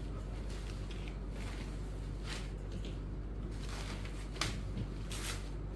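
Cotton saree cloth rustling and swishing as it is lifted and moved across a table, in a few brief swishes with a light knock about four and a half seconds in. A steady low electrical hum runs underneath.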